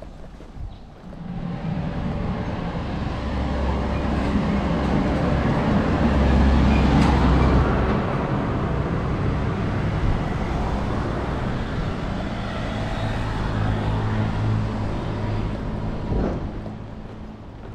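Motor vehicle engine running close by in road traffic. A low, steady hum swells to its loudest about seven seconds in and fades out near the end.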